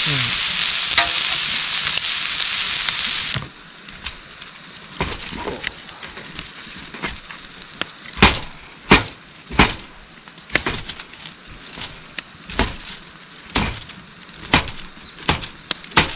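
Yakitori skewers of chicken and leek sizzling on an iron griddle plate over a wood fire, cutting off suddenly about three and a half seconds in. Then a knife slicing shiitake mushrooms on a cutting board: a series of sharp knocks, about one a second, closer together in the second half.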